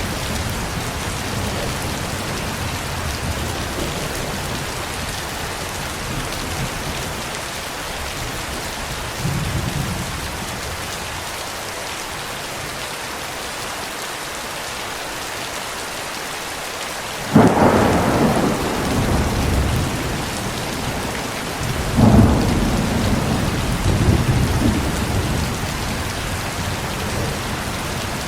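Steady rain falling, with thunder. A low rumble fades over the first few seconds, a sudden loud thunderclap comes a little past halfway and rumbles on for a few seconds, and a second clap about four seconds later rumbles on with a couple of swells.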